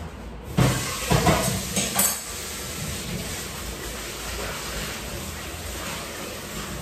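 Pots and utensils knock and clatter a few times, and a steady hiss sets in with the first knock and carries on.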